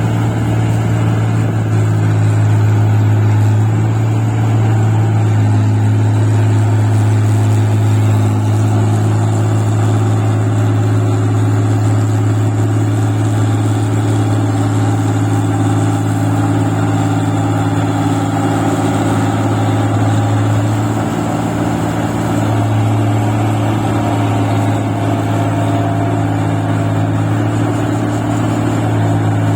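Engine of a rice-paddy machine running steadily at work in deep paddy mud, its note dipping briefly about two-thirds of the way through.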